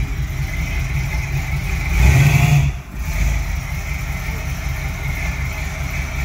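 Car engine idling, its sound briefly swelling about two seconds in, then dipping sharply before settling back to a steady idle.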